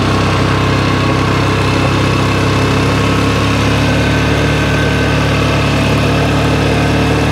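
ATV engine running steadily as it tows a small utility trailer past.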